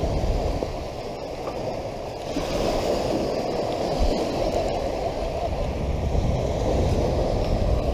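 Steady rushing noise of surf and wind at the beach, with a few faint clicks.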